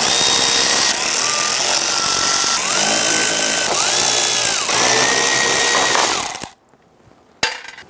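Power tool spinning off 13 mm nuts on the back of a door panel, its motor whine rising and falling in pitch several times, then cutting off suddenly about six and a half seconds in. A single sharp click near the end.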